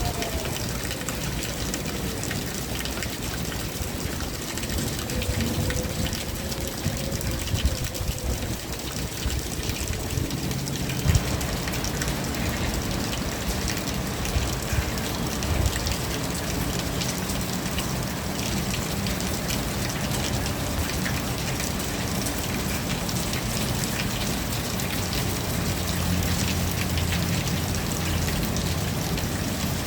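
Steady rain falling, with many drops ticking on surfaces; it grows fuller about a third of the way in. A faint wavering tone sounds under the rain in the first third.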